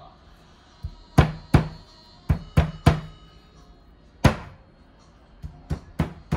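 Thuds of peeled deodeok roots being pounded flat on a cutting board: about ten strikes in uneven groups of two or three.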